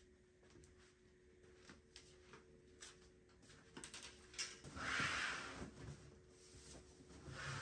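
Household items being handled and moved by hand: faint light knocks and clicks, with a louder scraping rustle about five seconds in and another near the end, over a faint steady hum.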